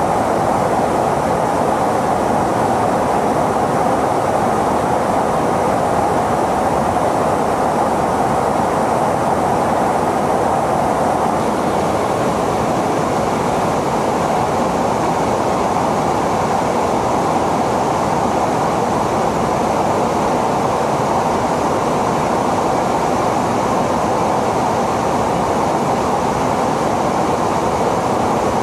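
Steady in-flight cabin noise inside a tanker aircraft: an even rushing drone of engines and airflow that holds unchanged throughout.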